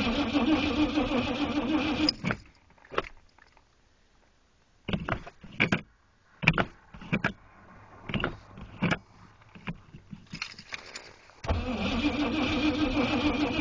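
Starter cranking the cold Oldsmobile 350 V8 of a 1977 Delta 88 for about two seconds without it catching. Scattered clicks and knocks follow, then a second round of cranking starts near the end. It is a hard cold start in sub-zero weather.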